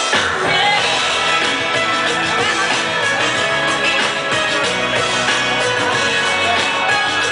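Music played loud through a club's sound system from the DJ decks; the low bass comes in right at the start.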